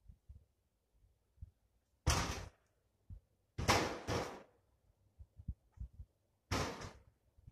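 Three loud wooden knocks from birch firewood being handled, each dying away in about half a second; the second is a quick double knock. Soft low thumps come in between.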